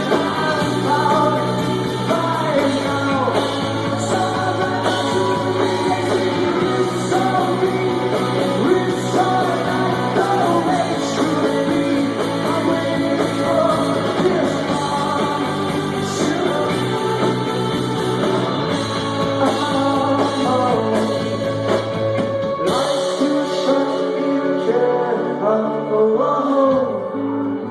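Live indie rock band playing, with a male lead singer over guitars, bass and drums. About 23 seconds in a sharp accent hits, after which the top end falls away and the playing thins to a sparser passage.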